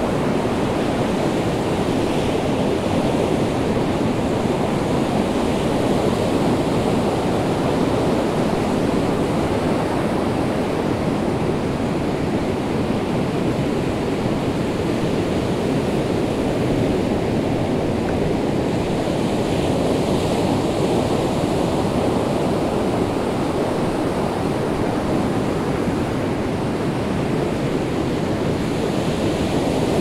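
North Sea surf on a sandy beach: a steady rush of breaking waves, swelling a little now and then.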